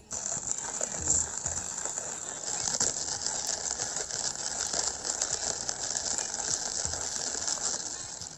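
Hand-cranked burr coffee grinder crushing whole coffee beans as the crank is turned: a steady, gritty crunching and rattling that stops near the end.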